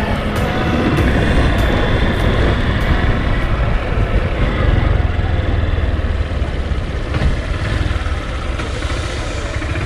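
Vehicle engine running steadily with a heavy low rumble.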